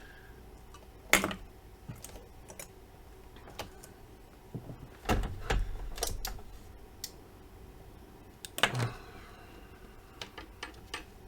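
Scattered light clicks and a few sharper knocks from test gear being handled on a workbench while a test signal is hooked up to the amplifier. Under them runs a faint steady hum.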